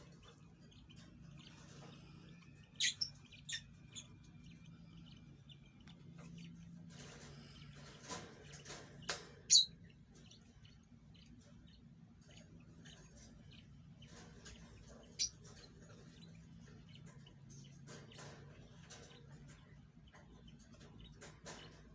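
Lovebirds at the nest giving many faint, short, high-pitched chirps and squeaks. Sharp, louder chirps stand out around three to four seconds in, twice around nine seconds and once around fifteen seconds. A faint steady low hum runs underneath.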